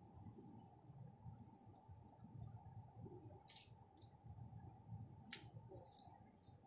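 Faint, sparse clicks of small plastic parts being handled, three sharper ones in the second half, over low handling rumble.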